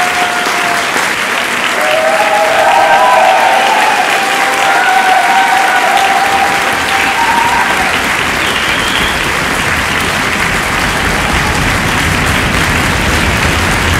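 Audience applauding steadily at a curtain call, with a few drawn-out calls from the crowd rising above the clapping in the first half.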